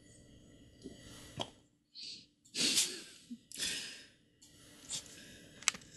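Cavalier King Charles Spaniel puppy burping: a few short breathy bursts between about two and four seconds in, the loudest at about two and a half seconds. A couple of sharp clicks come before and after.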